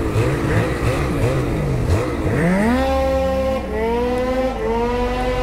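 Snowmobile engine revving quickly up and down over and over, then from about two seconds in climbing steadily in pitch as it accelerates, with two brief dips along the way.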